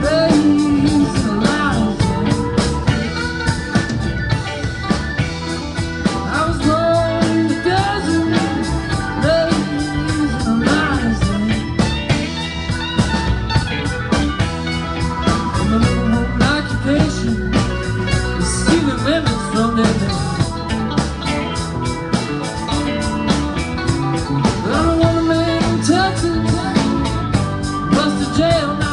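Live rock band playing: electric guitars, bass guitar, drum kit and keyboard together in a continuous, full-volume jam.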